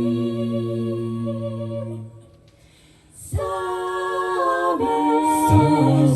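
A cappella vocal group singing a sustained chord in close harmony. It breaks off about two seconds in, and after a pause of about a second the voices come back in on a new chord that shifts through several chord changes.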